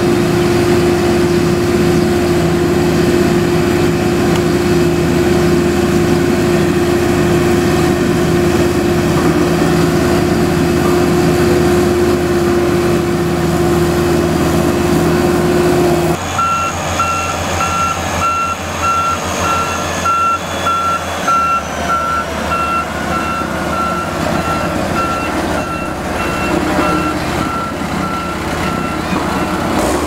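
Heavy diesel road-construction machinery running steadily, with a strong steady hum. About halfway in, a Sakai SV520D single-drum road roller's reversing alarm starts a regular string of beeps over its engine and stops just before the end.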